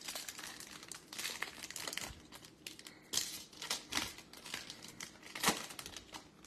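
Foil wrapper of a Topps Chrome trading-card pack crinkling as it is torn open and the cards are slid out: a run of sharp, irregular rustles, loudest a little after halfway and again near the end.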